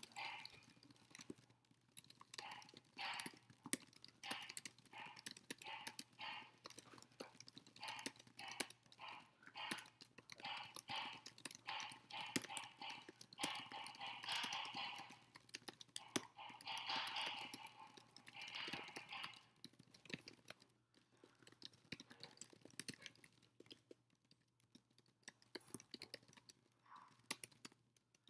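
Fast, continuous typing on a computer keyboard: rapid runs of key clicks with brief pauses.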